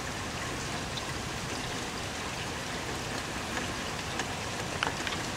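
Rain falling steadily, an even hiss with a few faint drop ticks in the second half.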